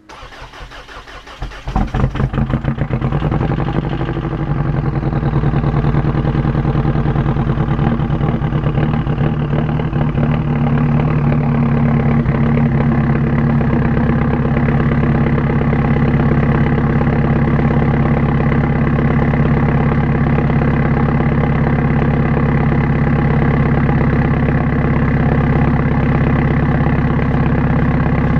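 Jeep Liberty CRD's 2.8-litre four-cylinder turbodiesel cranking and catching about two seconds in, then running steadily at idle through a 3-inch turbo-back exhaust with a Magnaflow muffler. This is a true cold start at about 2 degrees with no block heater and one glow plug removed.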